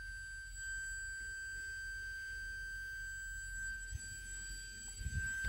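Car's key-in-ignition warning: a steady, unbroken high-pitched tone from the small speaker in the instrument cluster. It sounds because the key is left in the ignition with the door open.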